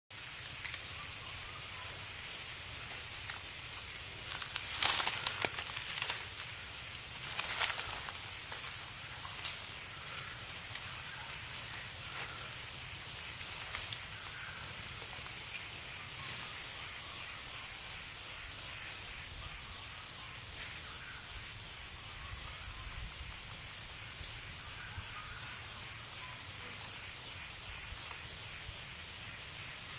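A chorus of cicadas singing, a steady high-pitched buzz with a fast pulsing texture. A couple of brief sharp noises come about five and seven seconds in.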